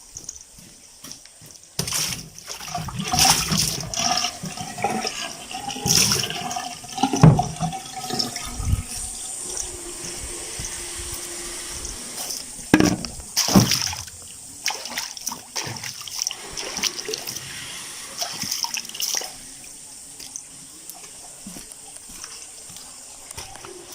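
Someone washing their face with water: a steady run of water with irregular splashes as it is scooped and thrown onto the face. The splashes come thick and loud at first and thin out after about nineteen seconds.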